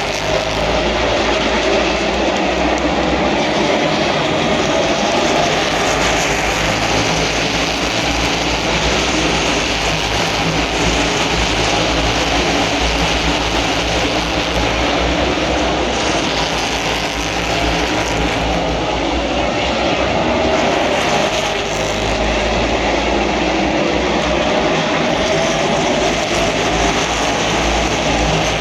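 A field of NASCAR Cup stock cars' V8 engines running continuously around the track, loud and unbroken, with engine pitch rising now and then as cars accelerate past.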